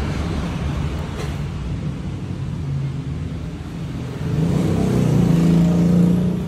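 Motor vehicle engine running over a steady low traffic rumble, swelling louder and rising a little in pitch from about four seconds in, then dropping away just before the end.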